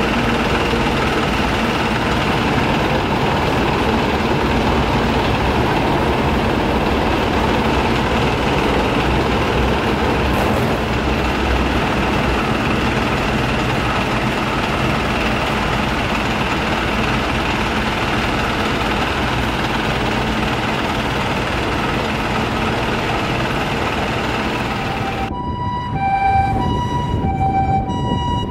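A fire engine runs amid steady street traffic noise. Near the end, it cuts to a Japanese ambulance siren: two clean tones alternating high and low, each held about half a second.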